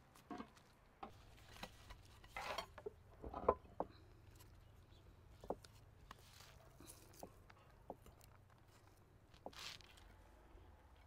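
Quiet, scattered taps, clicks and rustles of plates and food being handled on a wooden table, with one louder knock about three and a half seconds in.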